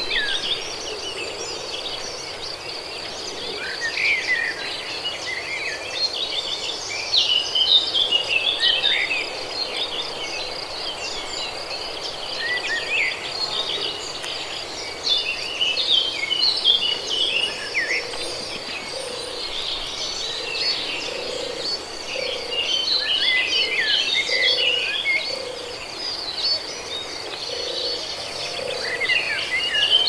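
Forest ambience: a steady high-pitched insect drone under many small birds chirping and twittering in short bursts. In the second half, soft low calls repeat about once a second.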